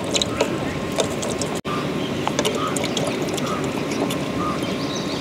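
Lime halves squeezed by hand, with scattered small wet clicks and crackles over a steady outdoor background hiss.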